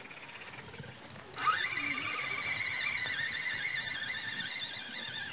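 Spinning fishing reel being cranked, winding in the feeder line: a steady whirring whine that starts suddenly about a second and a half in, wavering with the turns of the handle and sinking slightly in pitch as the winding slows.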